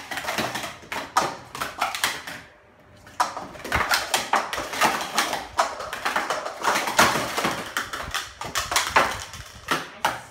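Plastic sport-stacking cups being stacked up and down fast on stacking mats by two people at once: rapid clicking and clattering of cups hitting each other and the mat, with a short lull a couple of seconds in.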